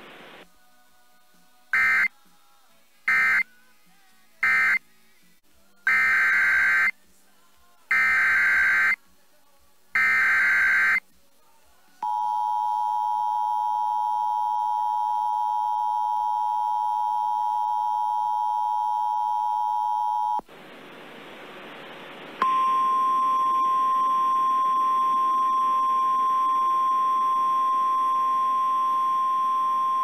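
NOAA Weather Radio Emergency Alert System data bursts and tones. First come three short screechy data bursts that mark the end of the tornado warning, then three longer data bursts that form the header of the next warning. These are followed by about eight seconds of the two-tone EAS attention signal, a brief hiss, and then the steady single-pitch 1050 Hz weather radio warning alarm tone.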